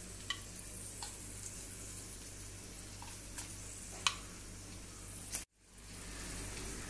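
Soft, steady sizzle of paneer cubes frying in shallow oil in a pan, with a few sharp clicks of metal tongs against the pan and plate as cubes are lifted out, the loudest about four seconds in. The sound drops out briefly about five and a half seconds in, then the sizzle returns.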